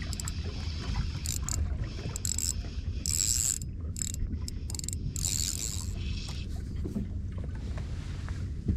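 Wind rumbling on the microphone of a small boat at sea, with uneven surges of hissing water noise.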